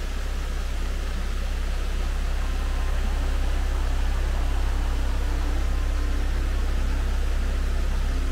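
Steady, unbroken rush of falling water from a waterfall and burn, with a strong low rumble.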